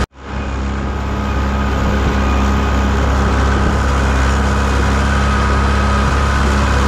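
Tractor engine running steadily as the tractor drives forward, a constant low hum. It fades in over about a second at the start.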